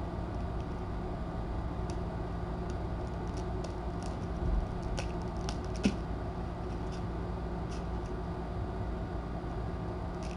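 Steady low room hum, with scattered light clicks and taps from kittens moving about and scrabbling at a fleece bed, a soft thump about four and a half seconds in and a sharper click about a second later.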